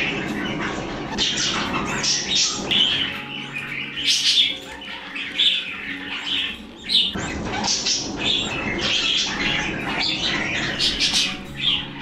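Budgerigars chattering and chirping, many short calls overlapping without pause.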